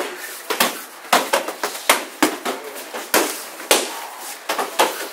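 Punches and kicks smacking into padded striking shields: a rapid, irregular string of sharp smacks, about three a second, overlapping from several pairs striking at once.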